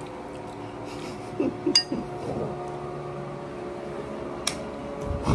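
A few sharp clinks of dishes and cutlery over a steady hum.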